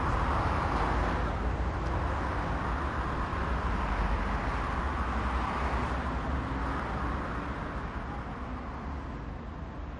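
Road traffic on a city street: a steady low rumble of passing cars, fading out gradually over the last few seconds.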